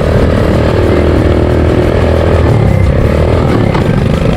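ATV engine running loudly under way, its note easing off a little past halfway and picking up again near the end.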